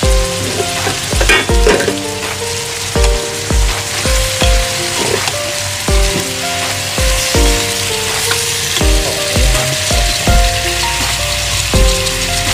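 Tomatoes and onions frying in oil in a pan, a steady sizzle, under background music with a regular kick-drum beat and a simple repeating melody.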